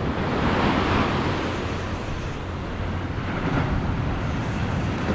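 Wind buffeting the microphone over surf washing onto the beach: a steady rush of noise that swells briefly about a second in.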